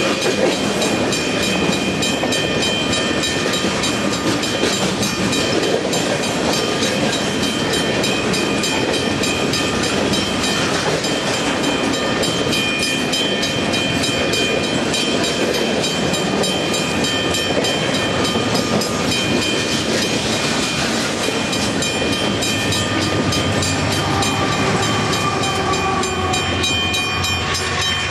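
Loaded coal train rolling past, the freight cars' wheels clicking rapidly over the rails with a steady high-pitched squeal. A deeper drone comes in near the end.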